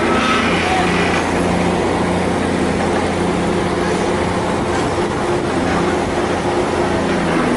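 Vibratory pile hammer (vibro hammer) for sheet piles running: a loud, continuous machine hum that holds steady throughout.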